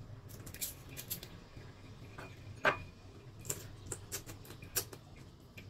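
Soft, scattered clicks and crackles of peeling and eating cooked prawns with the fingers, with one sharper click about halfway through.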